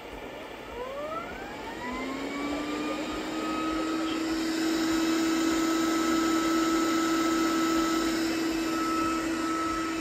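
Gutrend Vision 730 robot vacuum starting a cleaning run: its motors spin up with a rising whine beginning about half a second in, settling into a steady whine over a rush of air that grows louder for the next few seconds.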